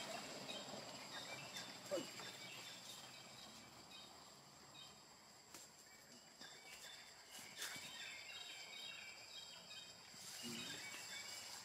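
Faint forest ambience: a steady high-pitched insect hum with scattered short chirping calls, a few light clicks, and one brief falling squeak about two seconds in.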